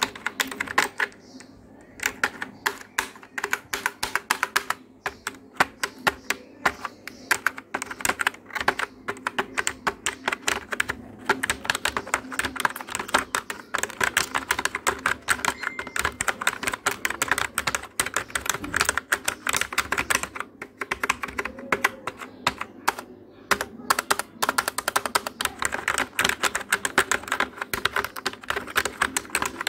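Rapid typing on a keyboard: quick runs of key clicks broken by short pauses, over a faint steady low hum.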